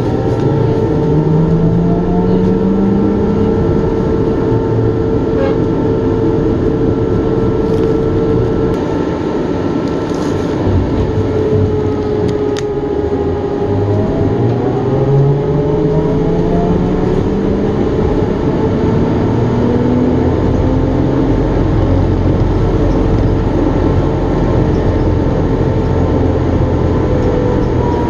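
Inside a trolleybus: the ventilation fan hums loudly and steadily over the road noise. The electric traction motor whines faintly underneath, rising in pitch each time the bus accelerates, a few times over.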